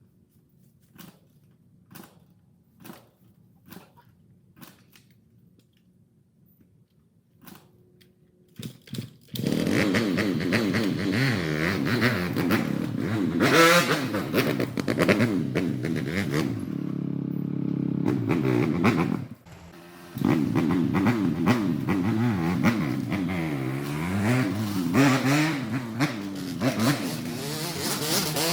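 Kawasaki 250 motocross bike engine revving hard, its pitch rising and falling again and again. It comes in loud about nine seconds in, drops away briefly about two-thirds of the way through, then runs loud again. Before it, only faint ticks about once a second.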